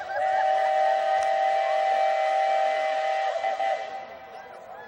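A loud horn sounding one long, steady chord of two close notes for nearly four seconds, then stopping.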